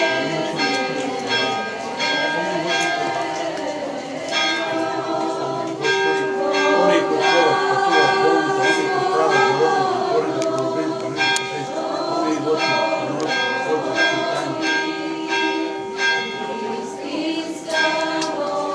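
Church bells rung in a quick, steady rhythm, about three strokes a second, over slow choral singing in the church.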